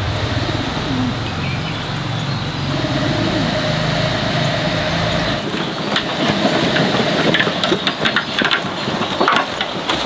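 Dogs growling at each other, a low rumble for about the first half. Then a loaded wheelbarrow of stones rattles and clatters over rough dirt ground.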